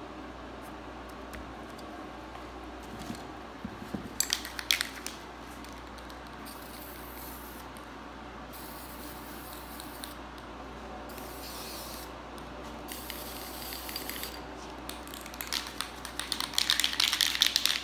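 Aerosol spray paint can hissing in several bursts a second or two long, with clusters of crackling clicks about four seconds in and again near the end.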